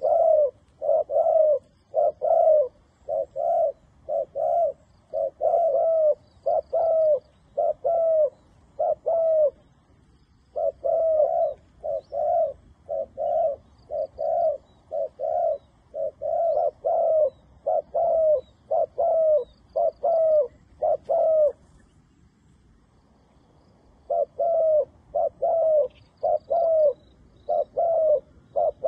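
A dove cooing over and over in a rapid series of short coos, nearly two a second, each falling slightly in pitch. The series breaks briefly about ten seconds in, stops for a couple of seconds after about twenty seconds, then resumes.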